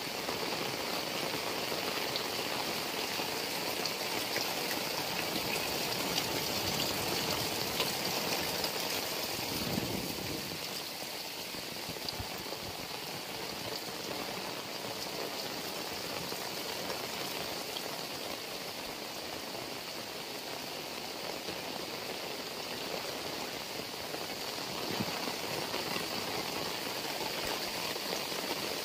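Heavy rain falling steadily, splashing into puddles and standing floodwater and running off roof edges. It is a little softer from about ten seconds in.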